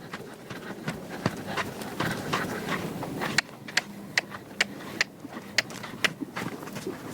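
Horse's hooves striking firm ground as it moves off at a gait, sharp beats that settle into an even rhythm of about two to three a second partway through.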